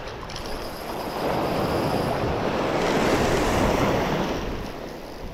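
Surf washing onto the beach: a rush of noise that builds about a second in, peaks in the middle and falls away near the end.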